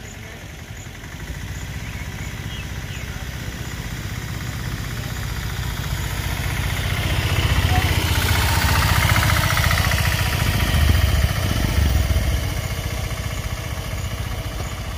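A small motor vehicle's engine running close by. It grows louder over the first several seconds as the vehicle draws near, then eases off slightly near the end.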